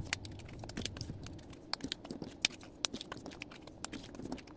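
Photocards being handled by hand: light, irregular clicks and taps of the cards against each other, several in each second.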